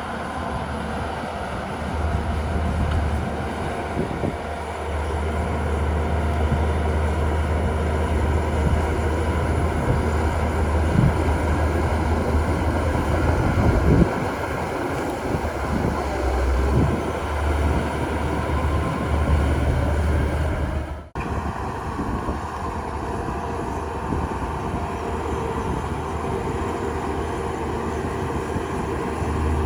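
Heavy earthmoving machinery's diesel engine running steadily with a low rumble, working through the clip. It cuts out for an instant about two-thirds of the way through, then carries on.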